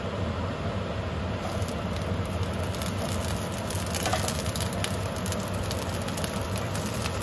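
Oil sizzling and crackling in a hot ridged grill pan as broccolini stalks are laid in, with sharp crackles starting about a second in, over a steady low hum.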